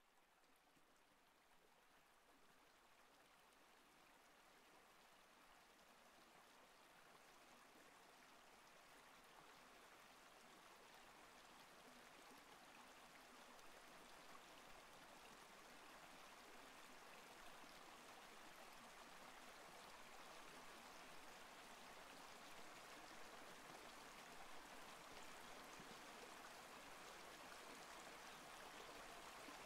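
A steady, even rushing hiss with no distinct events, fading in slowly and growing louder throughout.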